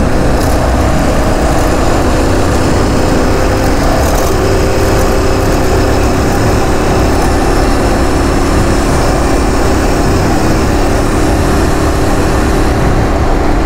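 Aprilia Tuareg 660's parallel-twin engine running at a steady cruising speed, with heavy wind noise over it while riding.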